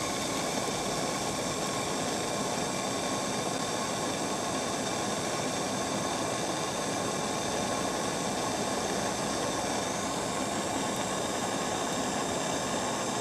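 Handheld gas blowtorch flame burning with a steady hiss while it heats a copper pipe and brass drain-off fitting for soldering.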